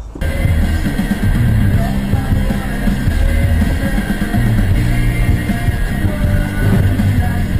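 Loud background rock music with a drum kit and bass, cutting in suddenly at the start.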